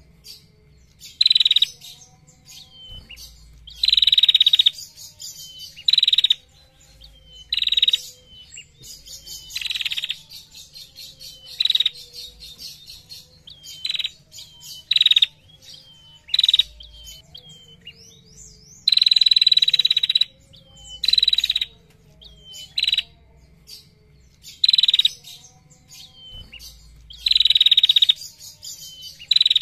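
Female prenjak calling in loud buzzing rattles ('ngetir'), one burst every second or two, some held for about a second.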